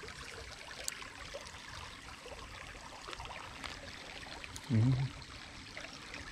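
Shallow creek water trickling steadily over a gravel riffle. About three-quarters of the way through, a short low hum from a man's voice is the loudest sound.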